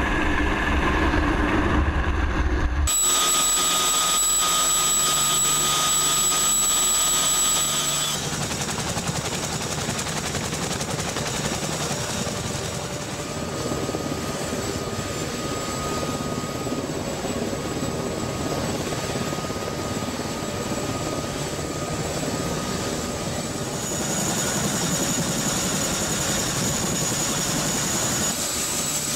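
Aircraft engines running steadily, with a high turbine whine over a broad rush; the sound changes abruptly about three, eight and twenty-four seconds in.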